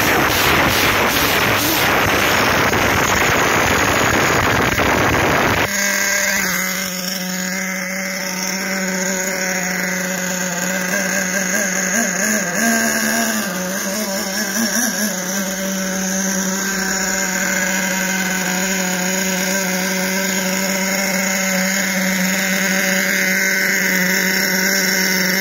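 HPI K4.6 nitro two-stroke engine, freshly repinched and running well, revved hard close up with the truck's wheels spinning free for about six seconds, then cutting abruptly to a steady high-pitched idle. A few seconds into the idle the pitch rises and falls briefly, then settles again.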